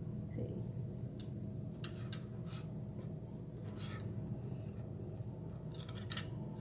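Plastic beads and plastic lacing cord being handled while beads are strung on: scattered small clicks and rustles, over a steady low room hum.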